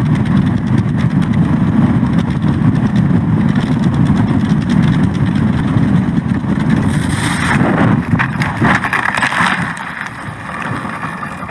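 Light aircraft's propeller engine running steadily in low flight, heard close up from the wing. About seven seconds in, a hissing rush joins it as the landing gear ploughs through standing crop. Near the end the drone drops away under scattered knocks as the aircraft goes over.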